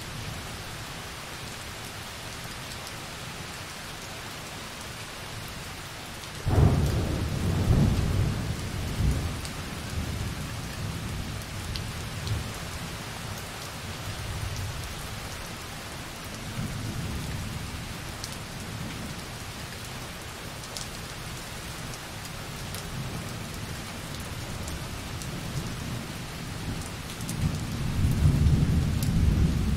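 Light rain pattering steadily on a window. About a quarter of the way in, a rumble of thunder breaks in suddenly and rolls on for several seconds, and another rumble swells near the end.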